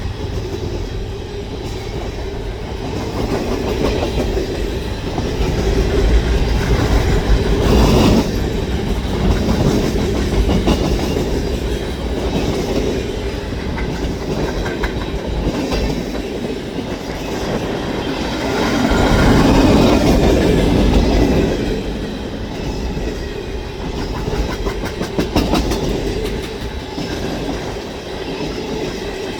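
Freight cars of a long CN manifest train rolling past, a steady low rumble with the clickety-clack of wheels over rail joints. The rumble swells for a couple of seconds about twenty seconds in.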